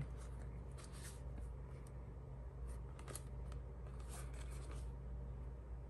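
Faint handling of a boxed Beyblade booster package: light rustles and small clicks of cardboard and plastic as it is turned over in the hands, over a low steady hum.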